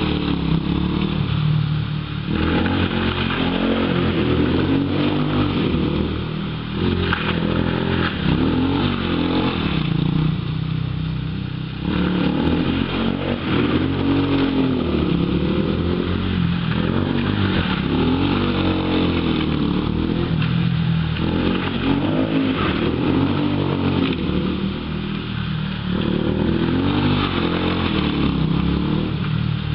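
ATV engine revving up and down as the quad is driven round and round, its pitch rising and falling again and again every couple of seconds.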